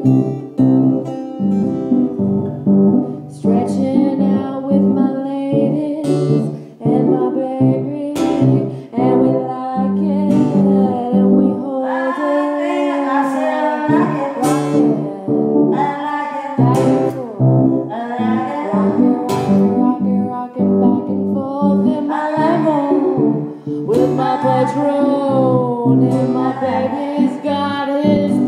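Guitar played in a live jam, with a voice singing over it. The singing is clearest in the second half.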